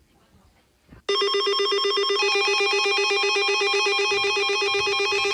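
Emergency alert system attention tone starts abruptly about a second in, after a near-silent pause. It is a loud electronic chord of several steady pitches, pulsing rapidly, with higher tones joining a second later, heralding a tsunami warning.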